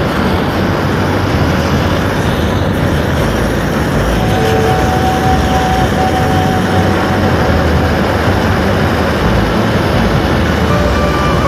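Handheld gas torch burning steadily: a loud, even rushing flame noise that does not let up.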